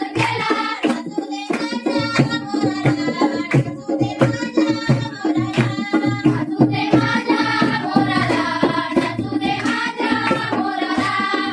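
Marathi folk song sung by young voices to a steady beat of hand-drum strokes and clapping.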